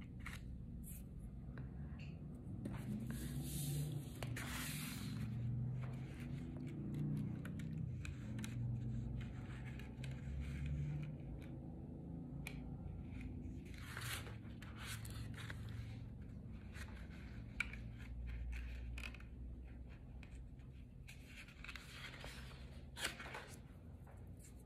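Cardstock and copper tape being handled and pushed through a slit: scattered soft paper rustles and scrapes, over a low steady hum.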